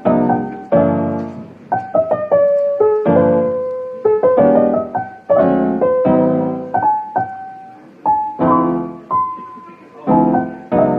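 Background music: a soft piano melody, struck chords and single notes ringing out and fading.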